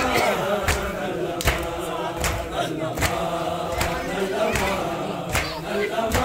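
Crowd of men chanting a noha in chorus with matam: open hands striking chests in unison, a sharp slap about every three-quarters of a second.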